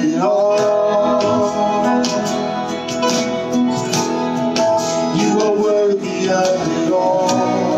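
Live praise-and-worship band music: guitar playing under a singing voice.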